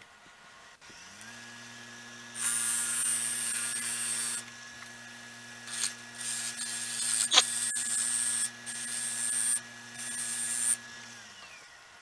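Grizzly wood lathe motor switching on and running with a steady hum, then switching off near the end. Over it, a turning tool cuts the spinning cedar blank in three long hissing passes, with one sharp tick partway through.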